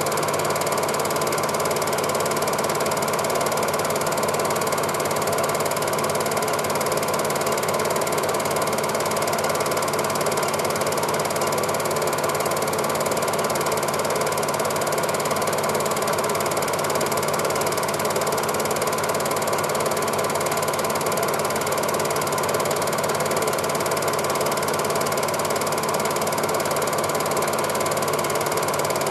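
Cine film projector running: a steady mechanical clatter from the film-advance mechanism.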